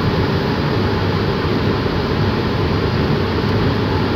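Steady road noise inside a moving car's cabin: tyre and wind rumble with a hiss over it, unbroken and even in level.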